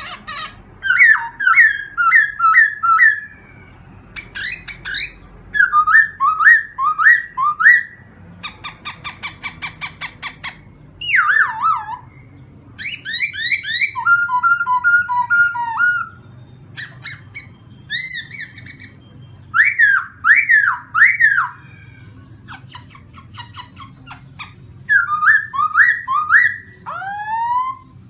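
A caged khướu mun, an all-black laughingthrush, singing loudly in a varied song. Phrases of quick, looping whistled notes alternate with runs of rapid chattering notes, separated by short pauses.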